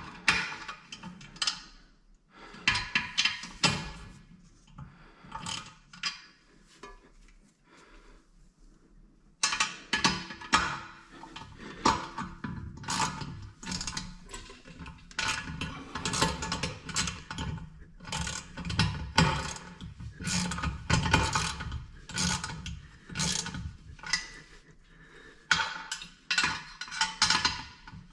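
Rapid ratchet-like mechanical clicking in short repeated runs from a hand tool working a toilet fitting's fastener. It comes in scattered runs with quiet gaps at first, then goes on almost without a break from about a third of the way in.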